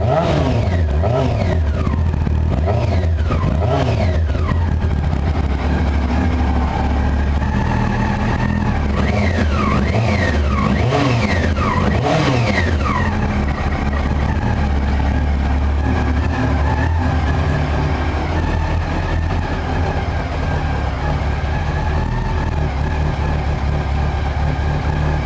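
1999 Yamaha R6's 600 cc inline-four running through an aftermarket BOS exhaust, blipped in quick revs that rise and fall back in the first few seconds and again about ten seconds in, then idling steadily.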